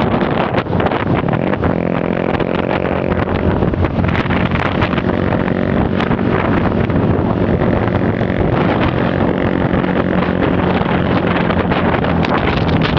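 A road vehicle's engine running at a steady pitch under heavy wind buffeting on the microphone, as when recording from a moving vehicle.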